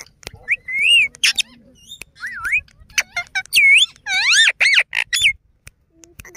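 Male rose-ringed parakeet giving a run of high whistled calls, each note gliding up and down in pitch, for about five seconds before falling quiet near the end.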